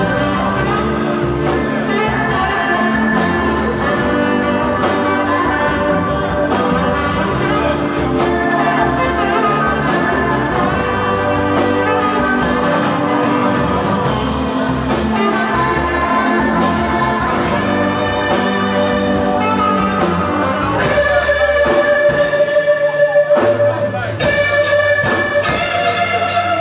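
Live rock band playing an instrumental passage, a steady drum beat under held keyboard and guitar notes. About three-quarters of the way through it swells louder on a long held note.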